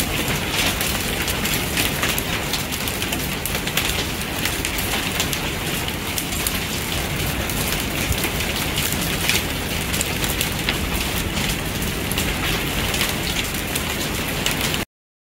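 A hailstorm: heavy rain and hail falling, a dense steady hiss with many sharp individual hits. It cuts off suddenly near the end.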